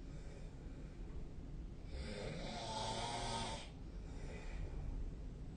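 A sleeping person snoring: one snore about two seconds in, lasting nearly two seconds, with a low pitched buzz under a breathy rush, between quieter breaths.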